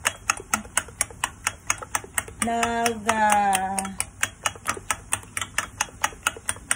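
A fork beating three eggs in a bowl, clicking against its side in a quick steady rhythm of about five strokes a second. About two and a half seconds in, a voice holds a drawn-out note for about a second and a half over the clicking.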